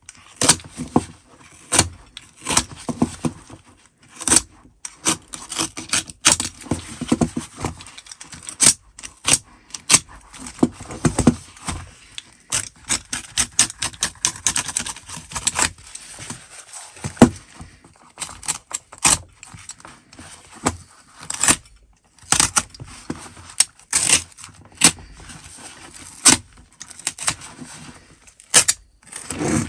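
Snap-off utility knife slicing and scraping through the fabric cover of a pocket Filofax, with the fabric ripping away from the foam padding beneath: irregular scratchy cuts and rasps in quick runs, broken by short pauses.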